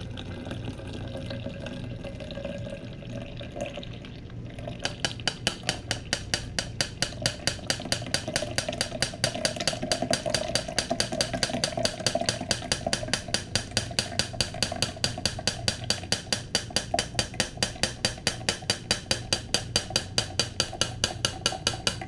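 Blended berry juice trickling through a fine mesh strainer into a glass pitcher. From about five seconds in comes a steady run of light taps, about three or four a second, as the strainer is jiggled against the pitcher to work the juice through and hold back the seeds.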